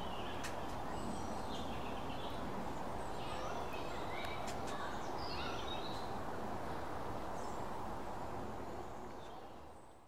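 Steady background rumble with short high chirps and squeaks scattered through it and a few faint clicks, fading out near the end.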